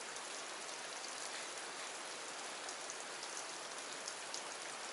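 Steady hiss of water in a river pool, with faint scattered light ticks.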